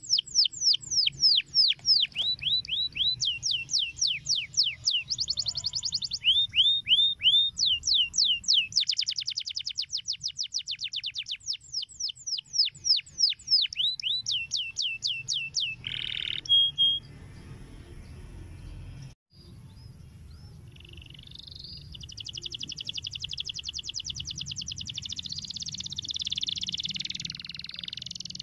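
Domestic canary singing in long, fast trills of down-sweeping notes, the speed changing from phrase to phrase. After a pause of a few seconds past the middle, a denser, buzzier rolling song follows.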